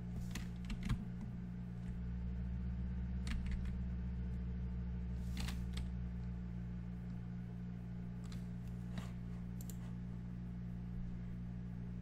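Computer keyboard keystrokes: a few isolated key clicks spaced seconds apart, over a steady low hum.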